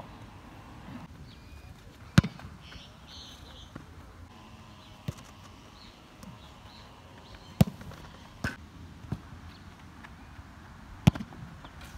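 A football being kicked hard: sharp thuds, the loudest about two, seven and a half and eleven seconds in, with a few fainter knocks of the ball between.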